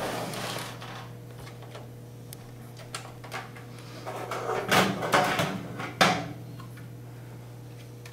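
Hands handling the printer's hard plastic housing and a loose black plastic side panel: rustling and scraping, with two sharp plastic knocks about five and six seconds in, over a low steady hum.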